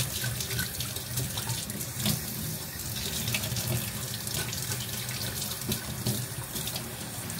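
Water running steadily from a kitchen tap into a sink, with a few light knocks.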